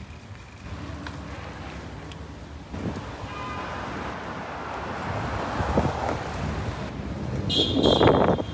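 Road traffic noise, with a motor vehicle passing close and loudest near the end.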